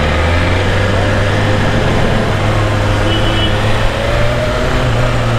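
BMW S1000RR inline-four engine running at low revs while riding slowly, with steady road and city-traffic noise around it.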